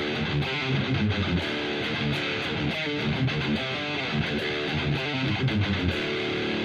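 Ibanez RGAT62 electric guitar played through a Boss Katana 100 212 amp on a heavy, high-gain patch: a hard-hitting distorted rhythm part. Near the end the last chord is held and rings out.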